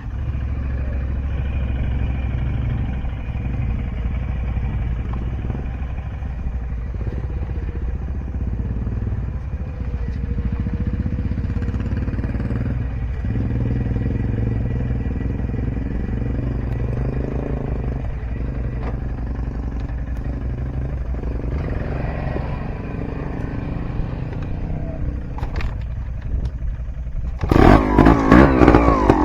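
Dirt bike engine idling steadily, then revved hard about a second and a half before the end, its pitch rising and falling.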